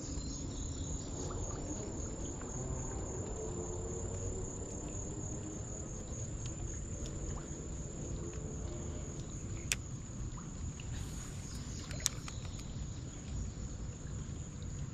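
Insects trilling steadily in a high, even drone over a low rumbling background noise, with two sharp clicks about ten and twelve seconds in.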